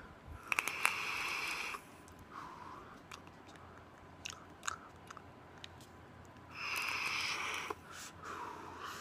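Two hits on a vape with a dripping atomizer: each is about a second of hiss as air is drawn through the atomizer over the firing coil, followed by a shorter breathy exhale. The first comes just after the start and the second about two-thirds of the way in, with scattered faint crackles between.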